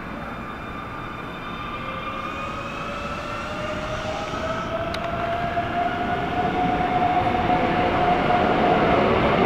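Keikyu 600 series electric train pulling away from a platform. Its VVVF inverter traction motors give several rising whines as it accelerates, growing louder as the cars come past.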